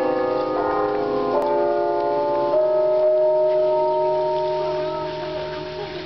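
Bell tower bells ringing a slow run of notes, a new strike every half second or so in the first two and a half seconds. The last notes are then left ringing and slowly fade.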